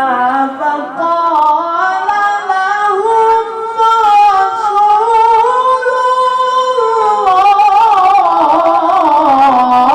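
A male Qur'an reciter's high voice holding a long, ornamented melodic line in mujawwad tilawah style. The pitch climbs slowly over the first few seconds, then falls back, with quick wavering ornaments in the second half.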